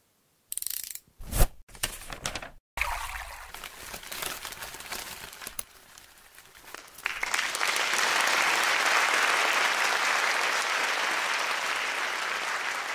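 Sharp clicks and knocks in the first few seconds. From about seven seconds in, a crowd applauds loudly and steadily, slowly fading.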